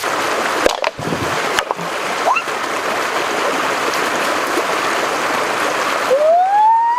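Creek water running steadily over rocks, with a few sharp knocks in the first two seconds. About six seconds in, a long voice-like call begins, rising and then falling in pitch.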